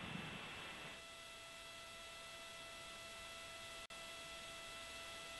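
Faint steady electrical hum with several held tones over a low hiss: the line noise of a broadcast audio feed. The hum comes in about a second in, with a momentary dropout near four seconds.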